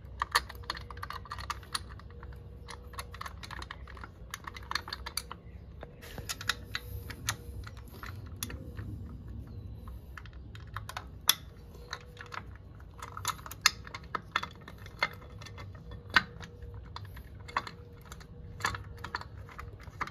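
Irregular small clicks and taps of a hex key and screws against a brake caliper cover as it is fitted and screwed onto a Tesla Model Y rear caliper, with a few sharper clicks in the middle.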